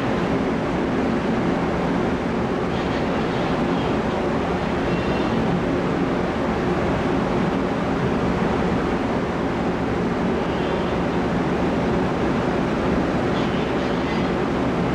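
Steady low rumble and hum of the car ferry Ferry Bizan's engines and machinery while berthed, under an even wash of noise, with faint brief high squeals a few times.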